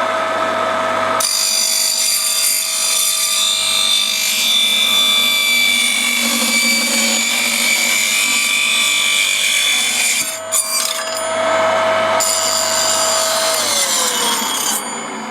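Homemade small circular saw bench, with a fine-toothed metal-cutting disc mill as its blade and a 550 W capacitor-run motor, running and then sawing through wood. There is a long high-pitched cut, a short break about ten seconds in, and a second shorter cut. The fine teeth leave a very clean cut.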